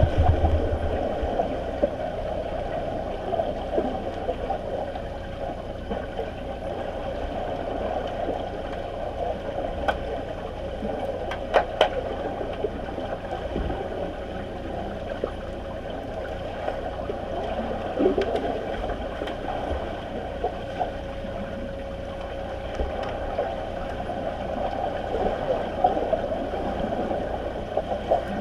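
Muffled underwater noise in a swimming pool: a continuous rushing and gurgling of water stirred by swimmers kicking overhead, with a faint steady hum. A few sharp clicks come near the middle.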